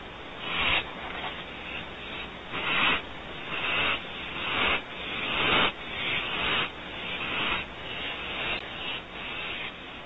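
Barn owl owlets giving a long series of raspy hisses, about one a second. This is the hissing 'snore' that young barn owls use to beg for food.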